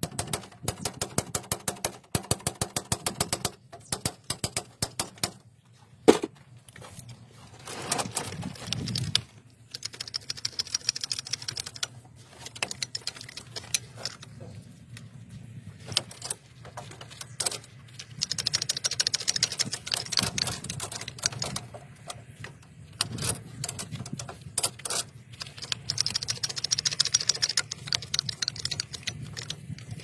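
Hand-operated hydraulic crimping tool being worked to press a copper cable lug, with fast runs of metallic clicks and rattles.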